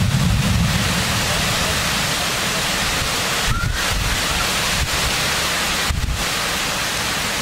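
Heavy rain falling in a steady hiss, with strong gusting wind; gusts buffet the microphone with low rumbles at the start, about halfway through and again a second or two later.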